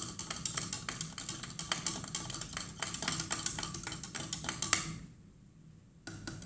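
A metal spoon stirring berry drink powder into water in a plastic cup, with rapid clicking and scraping against the cup's sides. The stirring pauses for about a second near the end, then the clicks start again.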